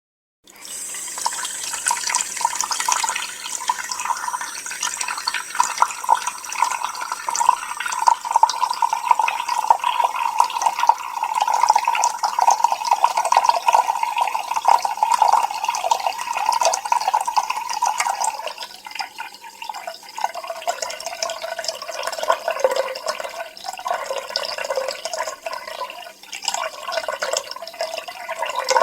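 A stream of water falling and splashing steadily. About twenty seconds in the splashing turns lower and a little quieter.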